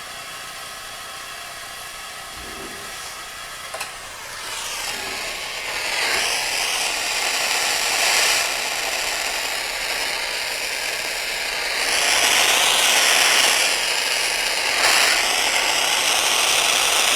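Acetylene torch flame hissing steadily, growing louder about four seconds in and swelling several times as it heats a saxophone key post and body for soldering with leaded solder.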